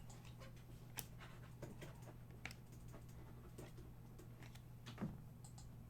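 Faint, scattered clicks and light rustles of trading cards being handled and flipped, over a steady low hum.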